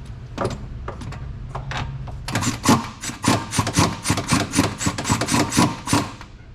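Hand ratchet turning a suspension bolt through a socket and swivel: a few scattered metallic clicks, then from about two seconds in a quick, even run of sharp clicks, about five or six a second, that stops near the end.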